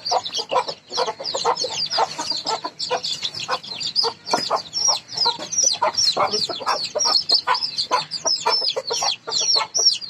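Aseel chicks peeping rapidly and loudly in high falling notes, several a second, the distress peeping of chicks being caught and handled, with lower clucking among them.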